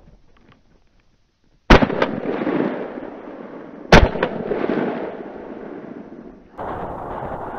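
Two shots from an MP-155 semi-automatic shotgun, about two seconds apart, each followed by a long rolling echo through the forest. A steady rushing noise starts near the end.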